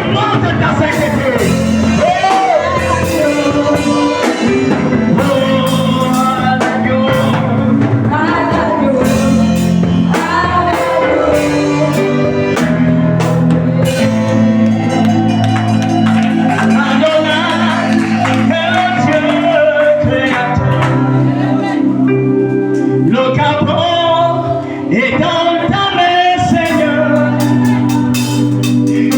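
Music with singing over sustained instrumental accompaniment and a percussive beat.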